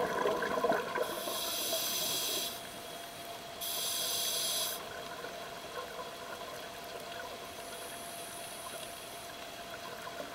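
Scuba diver's regulator: bubbling fades out in the first second, then two hissing in-breaths are drawn through the regulator, about a second apart.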